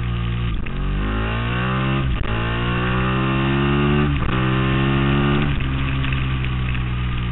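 Ducati Monster S4Rs L-twin engine heard onboard, accelerating hard with wind rush: the pitch climbs in each gear, broken by three quick upshifts, then the throttle closes about five and a half seconds in and the engine note drops.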